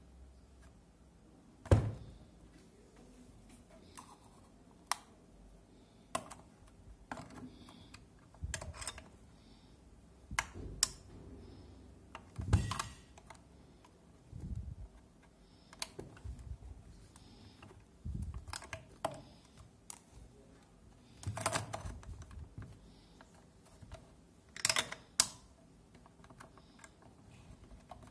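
Irregular plastic clicks and knocks, some with a duller thump, from the yellow lever in the top slot of an Optimum GQ-D13 drill sharpener being pressed down and let go again, one every second or two.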